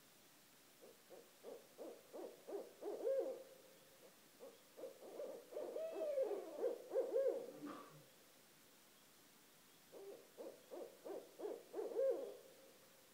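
Barred owls hooting in three bouts of rhythmic hoots, each growing louder as it goes; the first and last end in a drawn-out note, and the middle bout is a tangle of overlapping hoots with gliding pitch.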